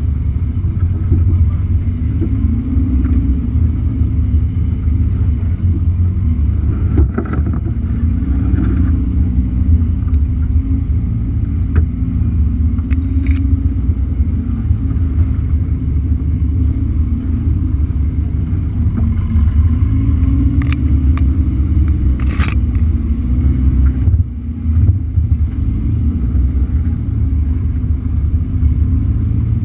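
Suzuki Samurai's four-cylinder engine running at low revs as the 4x4 crawls along a rough dirt track, its pitch rising and falling a little with the throttle over a heavy low rumble. A few brief knocks come through along the way.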